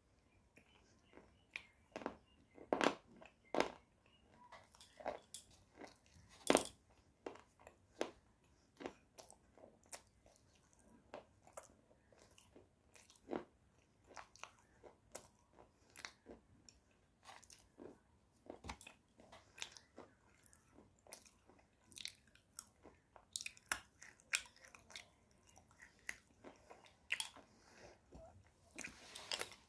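A person biting and chewing a thick, hard white clay bar right at a clip-on microphone, giving irregular sharp crunches one or two a second.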